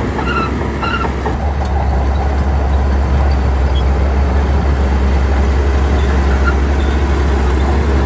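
Heavy diesel engine of construction machinery running steadily under load, with a strong low drone that grows a little louder over the first few seconds and then holds.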